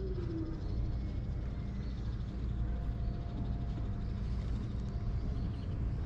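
A small kitten's faint meow falls in pitch and trails off in the first half second, over a steady low background rumble that carries on throughout.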